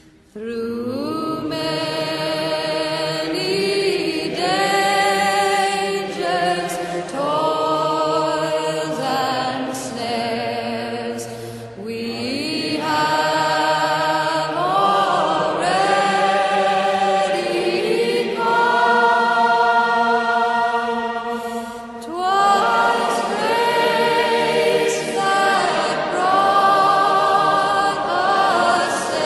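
Background music: a choir singing a slow hymn in long, held, wavering notes, with short breaks between phrases about twelve and twenty-two seconds in.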